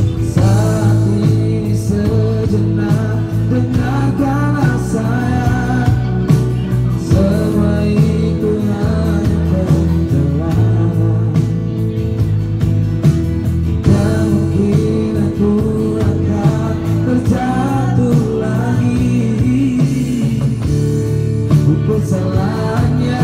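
Live band playing a song: a sung vocal line over the band, with percussion struck with drumsticks.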